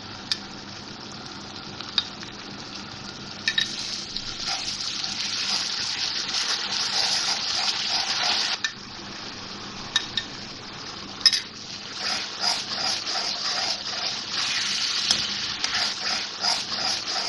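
Onion masala sizzling in hot oil in a karahi as spoonfuls of yogurt are added and fried in, the bhunai stage of the masala. A steel spoon scrapes and clinks against the pan, with sharp clicks now and then and, in the second half, a steady stirring rhythm of about two strokes a second.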